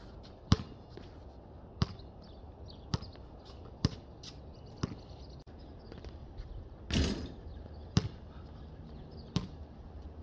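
Basketball bouncing: a row of sharp bounces about a second apart, fading as the ball dies down, then a longer, noisier hit about seven seconds in and two more bounces near the end.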